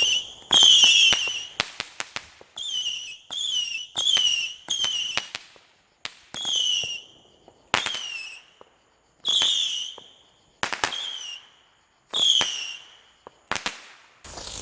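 Consumer firework letting off a string of about eleven short whistles, each dropping in pitch, with sharp pops between them.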